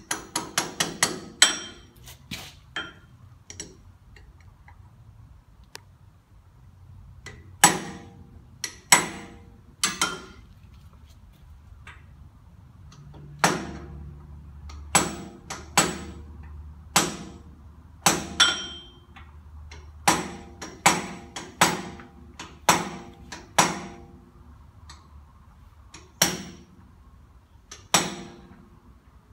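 Soft-face hammer striking a socket used as a driver, tapping a new inner axle seal into the axle housing. There are about two dozen sharp blows, a quick run of them at the start and the rest spaced out, each with a short metallic ring.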